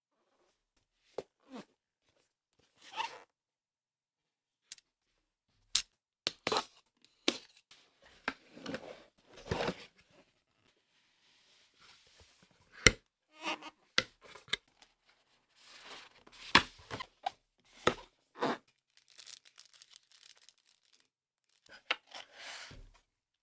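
Cardboard box and foam packing being opened and handled: scattered short scrapes, rustles and taps of cardboard, with a few sharp snaps.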